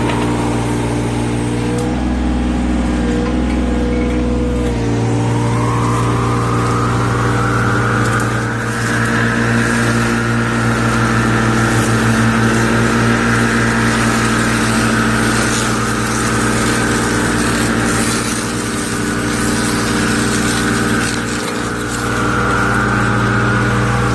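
Excavator with a mini cutter attachment running steadily. About five seconds in the engine note changes and a high whine rises and then holds.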